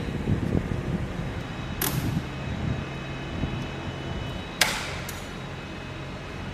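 A steady low rumble with two sharp clicks or clanks, one about two seconds in and a louder one about four and a half seconds in, and a faint high steady whine in the background.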